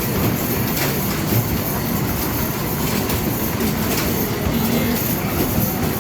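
Arcade basketball machine in play: basketballs rumble steadily as they roll down the return ramp, with a few sharp knocks of balls striking the hoop.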